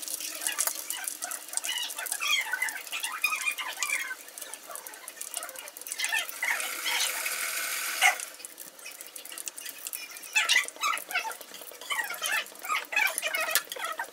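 Omapodi (gram-flour sev strands) deep-frying in hot oil in an aluminium wok, crackling and sizzling, with many high squeaky chirps over it. A sharp click about eight seconds in, as the metal stirring rod touches the wok.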